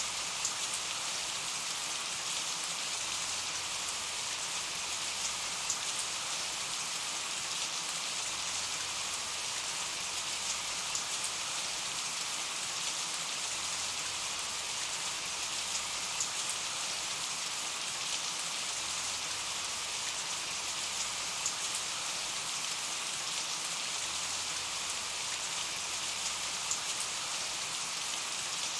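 Steady rain falling on a surface, an even hiss with scattered sharper drops.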